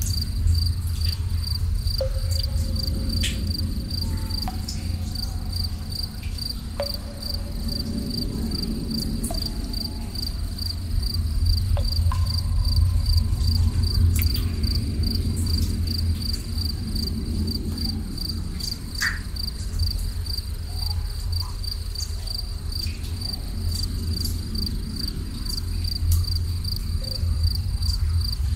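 Crickets chirping in a steady, evenly pulsing chorus over a continuous deep low rumble, with a few scattered sharp drips.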